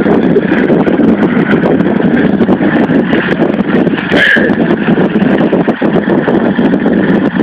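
Small single-cylinder-type engine of a ride-on lawn tractor running hard and steady under load as it climbs a hill, with a rapid, rough pulsing.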